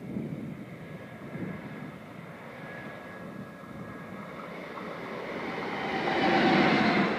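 Bombardier Traxx electric locomotive approaching and passing at speed. A faint steady whine and rumble grow into a loud rushing pass-by of wheels on rail with whining traction equipment, loudest near the end.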